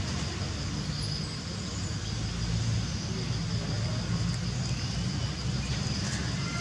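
Steady outdoor traffic rumble from motorbikes and road vehicles, with a steady high-pitched drone above it.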